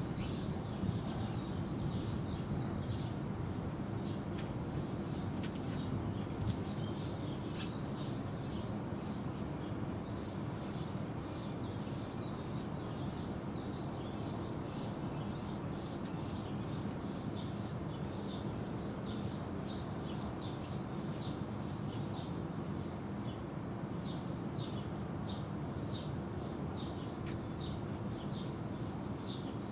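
Small bird chirping in quick runs of short high notes, again and again, over a steady low rumble.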